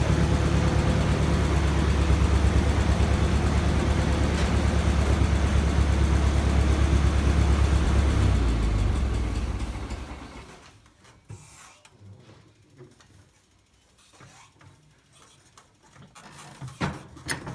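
Tractor engine running steadily, then shut off about nine seconds in, slowing and dying away over a second or two. Afterwards only a few small clicks and knocks, the loudest near the end.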